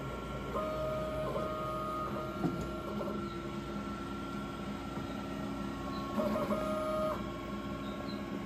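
DTF textile printer running: a steady whine from its motors and fans, with a higher stepped motor whine coming in twice, about half a second in for a second and a half and again about six seconds in for about a second.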